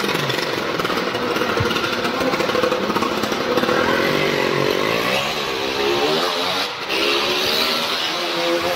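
Small motorcycle engine revving up and down as a stunt rider circles the floor of a wooden well-of-death drum.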